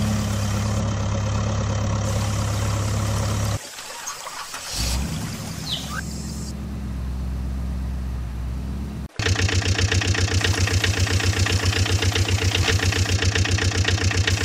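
Engine sound effects laid over the footage, switching abruptly between recordings: a steady engine hum, then after a short drop near four seconds a different engine idling, and from about nine seconds a fast, even chugging of roughly seven beats a second.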